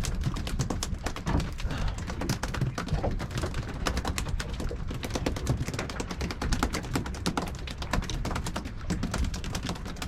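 Rapid, irregular clicking and tapping of fishing tackle while a hooked string of mackerel is wound in, over a steady low rumble.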